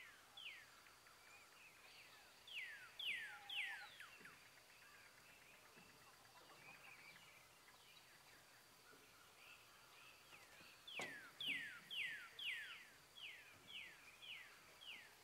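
A songbird singing: groups of quick falling notes, three about three seconds in and a longer run of about ten near the end.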